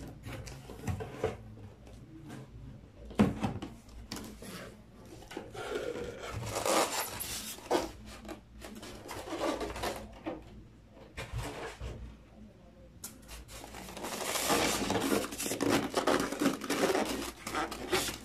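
Cardboard box and styrofoam packaging being handled: irregular rustling, scraping and rubbing as the box is opened and the foam tray handled, with scattered knocks and one sharp knock about three seconds in.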